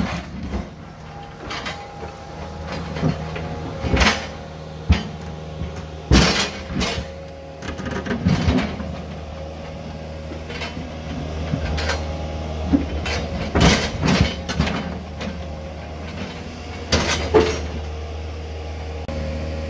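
Hydraulic excavator's diesel engine running steadily while the bucket digs and scrapes in rocky soil, with irregular clanks and knocks as the bucket strikes stone and earth.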